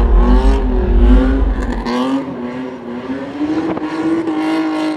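BMW E30 drift car's engine revving hard, its pitch wavering up and down as the throttle is worked, then climbing and holding high. A heavy low rumble under it drops away about two seconds in.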